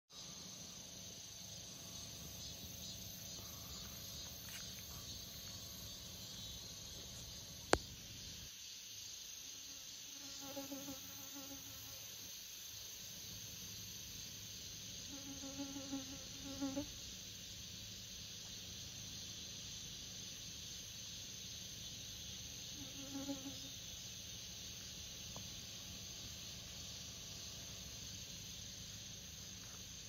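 Steady chorus of grass insects such as crickets, shrilling high. A bee buzzes briefly past three times, about ten, sixteen and twenty-three seconds in, and there is one sharp click near eight seconds.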